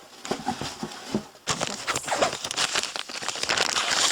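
Crinkling and rustling of packaging being handled as an item is pulled out of a box, with scattered small clicks.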